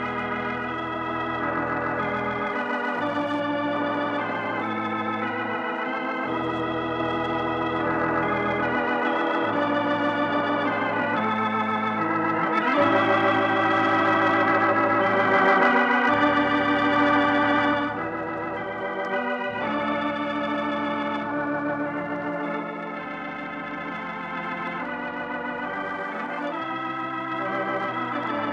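Organ playing the programme's closing music: sustained chords with vibrato over low pedal notes that change every few seconds, swelling to its loudest a little past the middle, then dropping back.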